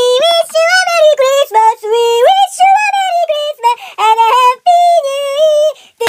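A high-pitched singing voice in quick, short syllables, stepping up and down between notes, with no accompaniment.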